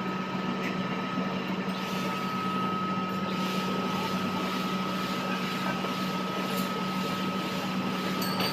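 Metal lathe running steadily: a constant machine hum with a thin high whine above it.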